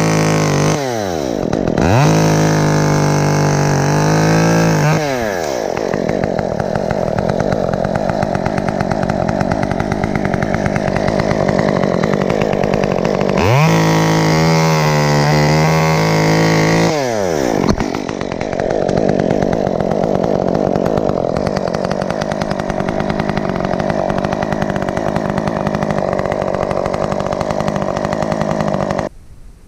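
Two-stroke chainsaw engine revving up hard three times and running at lower speed in between. It stops abruptly just before the end.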